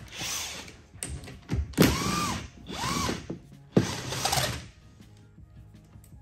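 Cordless power driver run in four short bursts, its motor winding up and back down each time, backing out fasteners on an outboard's hydraulic steering ram.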